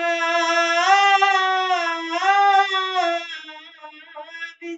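A boy singing a shabad (Sikh devotional hymn) unaccompanied, holding one long ornamented note that wavers in pitch for about three seconds before softening and trailing off.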